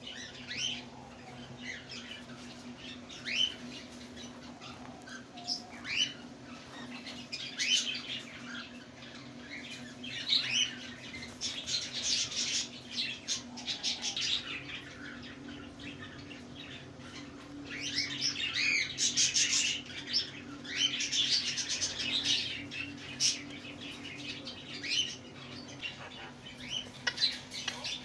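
Flock of cockatiels in an aviary, calling over and over with short chirps and squawks that come thicker in two busy stretches, over a steady low hum.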